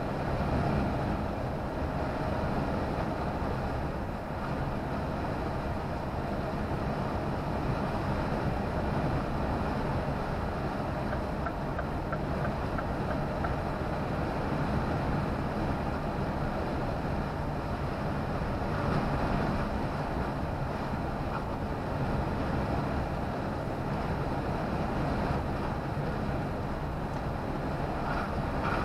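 Steady engine and tyre-on-road drone heard inside a vehicle's cab while it drives at speed, with some wind noise.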